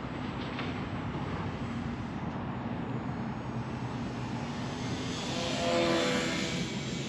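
Electric motor and propeller of a small foamboard radio-controlled plane buzzing in flight, growing louder as the plane passes close overhead near the end.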